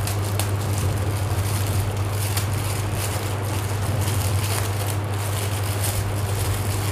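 Thin plastic packet crinkling and rustling as it is pulled open by hand, over a steady low hum.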